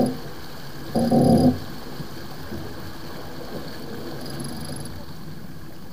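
Steady rush of water and wind aboard a sailboat under way, broken by two short, loud, buzzy sounds about a second apart near the start.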